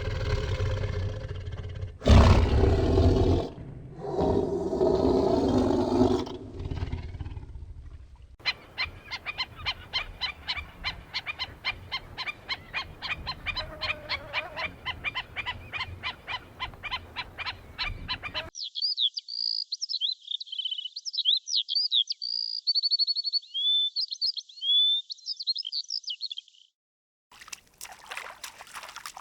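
A sequence of different animal sounds. First come loud, pitched calls for about seven seconds. Then a fast, even train of clicks runs for about ten seconds, and high, quick chirping notes follow for about eight seconds.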